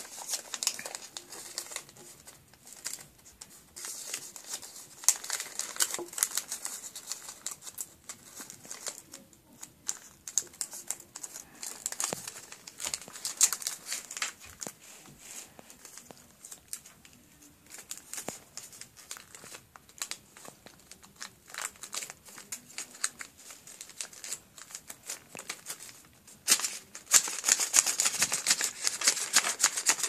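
Origami paper rustling and crinkling in irregular bursts as it is folded and creased by hand. Near the end comes a dense run of rapid papery clatter as the finished flapping bird's wings are worked back and forth.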